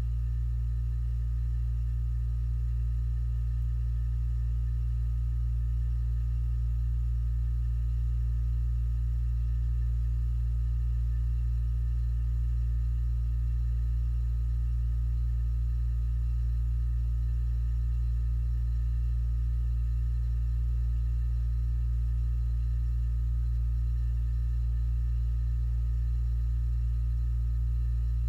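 Chest fridge compressor running: a steady deep hum with a few faint, even higher tones above it, unchanging throughout.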